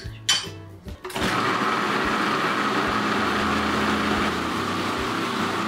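A few clicks, then a food processor motor starts about a second in and runs steadily, blending a runny strawberry and coconut cream mixture.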